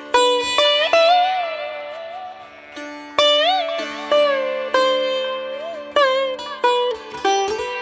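Background instrumental music: a plucked string melody with sliding, bent notes over a steady drone, in a sitar-like Indian classical style.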